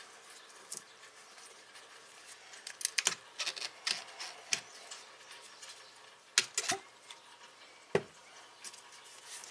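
Scattered clicks, taps and rubbing from gloved hands handling coolant hoses and their fittings in an engine bay, with a few sharper knocks a little past halfway and near the end.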